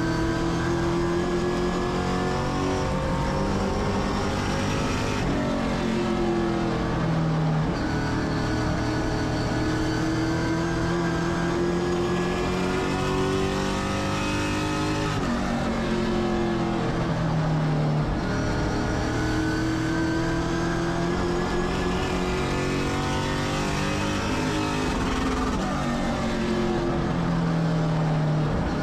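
Race car engine lapping a short oval track. The engine pulls steadily higher in pitch along each straight, then lifts off and falls in pitch into the turns, about every ten seconds.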